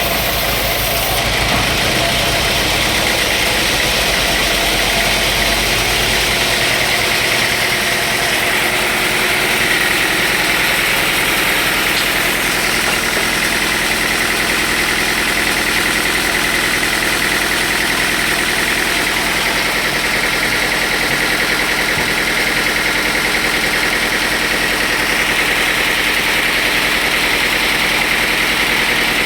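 Sawmill machinery running steadily, a loud continuous mechanical noise. A high steady whine grows stronger after several seconds, while a low rumble fades out about six seconds in.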